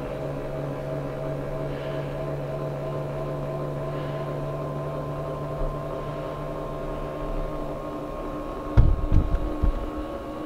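Electric linear actuator, taken from a medical device, running steadily as it lifts a power-dump wagon bed: a steady motor drone with a whine. A few sharp knocks come about nine seconds in.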